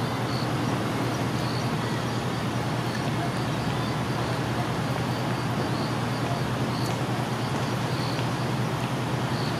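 Steady outdoor city traffic hum with a constant low drone, and faint high chirps now and then.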